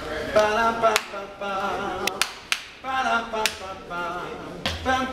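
A man singing a cappella in three short sung phrases without clear words, with a few sharp clicks between them.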